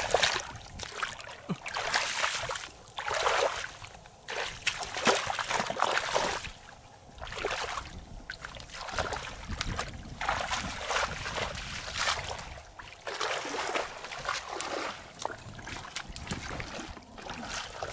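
Shallow muddy water splashing and sloshing in irregular bursts every second or two, as someone wades through it.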